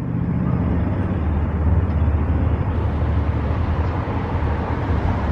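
Cars passing on a city street: a steady low engine rumble with tyre noise.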